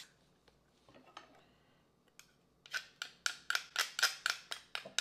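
A metal spoon scraping pressed garlic off a garlic press. From about halfway through, a quick run of short, sharp scrapes comes at about four to five a second.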